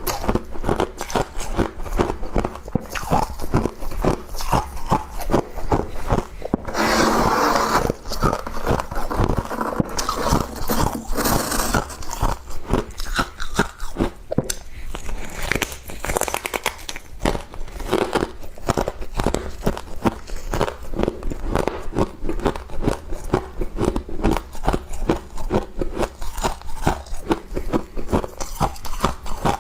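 A person chewing and crunching frost in the mouth, close to the microphone, with many rapid crunches one after another. A louder, noisier crunching stretch comes about seven seconds in and lasts a few seconds.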